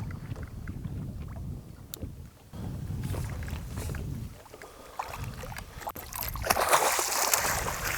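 Low wind rumble on the microphone with water around the boat, then about two-thirds of the way through a loud rush of water splashing as the hooked walleye is brought up to the boat.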